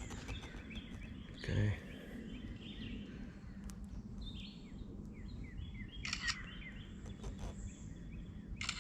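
Small birds chirping, with many short calls over faint steady outdoor background noise; a man says "okay" once, briefly.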